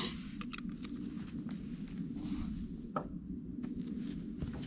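A few light, irregular clicks and taps of cups and containers being handled, over a steady low background rumble.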